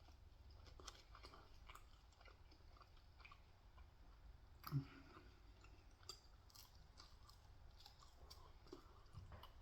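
Faint close-up chewing of food, with small wet mouth clicks and one louder low thump about halfway through.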